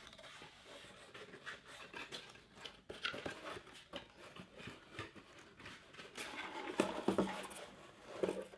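Irregular rustling and small clicks as a boxed Funko Pop vinyl figure and its packaging are unwrapped and turned over by hand.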